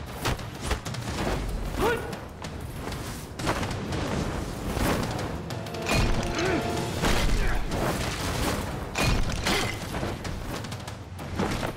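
Dramatic background music with a series of sharp hits and thuds, the impact sound effects of a martial-arts fight.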